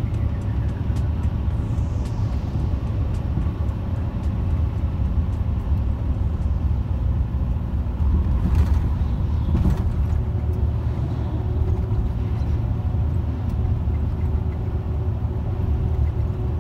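Steady low road and engine rumble of a vehicle driving along a highway. The noise swells about eight to ten seconds in as oncoming trucks pass.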